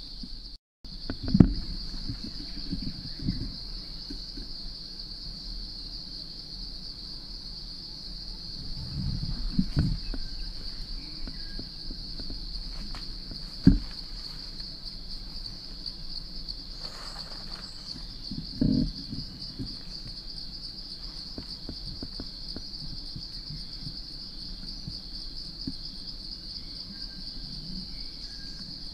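Steady high-pitched chorus of forest insects, a continuous shrill drone. A few dull thumps and rustles break in, the sharpest about a second in and near the middle.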